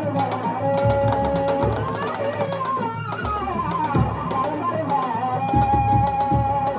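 Drum-led music: deep drum strokes every second or so under a held melody line that slides between notes.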